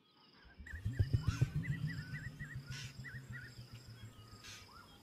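Dusk ambience of the African bush: a steady high insect trill, a repeated wavy chirping call, and a low rapid pulsing underneath that comes in about half a second in and is loudest around a second in.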